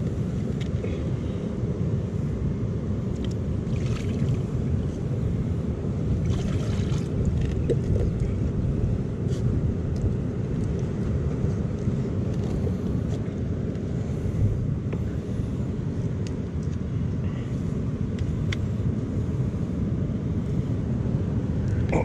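Steady low rumble of wind buffeting the microphone over the wash of sea surf on a rocky shore, with a few faint clicks.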